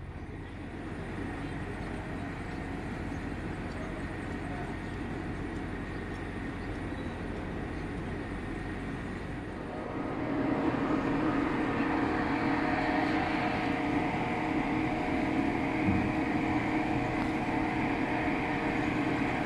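Steady machinery hum of a moored passenger ferry running on standby, with several constant tones over a low drone. About ten seconds in it gets louder.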